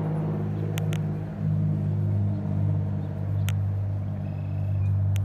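A steady low motor drone runs throughout, with a few brief sharp clicks.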